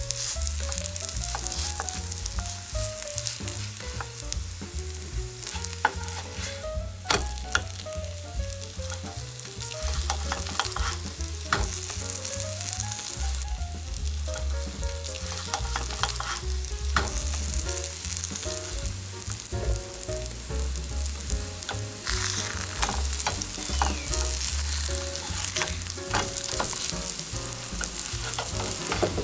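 Vegetable pancakes sizzling steadily in oil in a nonstick multi-well pan. A wooden spatula scrapes and taps against the pan now and then as the pancakes are pressed and checked.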